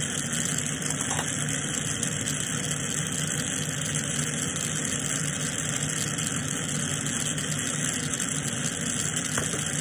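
Lampworking bench torch burning steadily with a continuous hissing rush, over a low steady hum.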